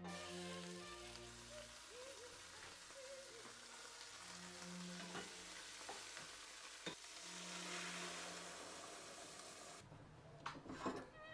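Chicken carcass and vegetable scraps sizzling in hot oil in a stainless steel stock pot as they brown for stock, stirred with a wooden spoon, with a few sharp clicks of the spoon against the pot. The sizzling stops about ten seconds in, with faint background music underneath.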